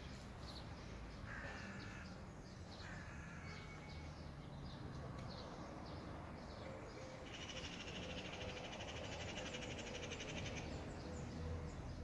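Birds calling among the trees: two short harsh calls in the first few seconds, then a high, rapidly pulsing buzz lasting about three seconds, over a low steady background rumble.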